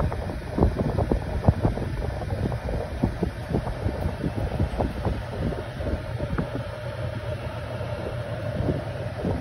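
Air from a cooler blowing across the microphone: a steady low wind rumble with irregular buffeting crackles.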